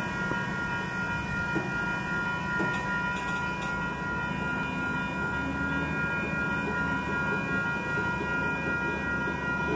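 Union Pacific freight train rolling slowly past, a low steady rumble of steel wheels on rail with a few sharp clicks from wheels over rail joints. Over it a grade-crossing warning bell rings steadily in an even rhythm.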